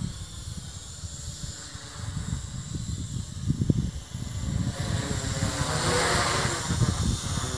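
Wltoys Q333B toy quadcopter's electric rotors whirring overhead, growing louder about five seconds in as it comes closer. Wind rumbles on the microphone.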